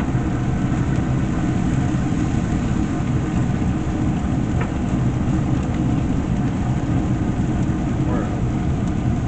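Pellet grill running: a steady low hum from its fan, with a faint crackling sizzle from the steaks on the hot side by the firebox.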